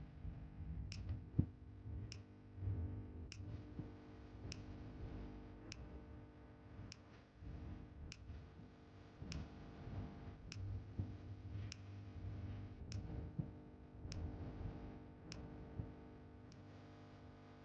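Background music: steady held notes with a light tick a little more than once a second.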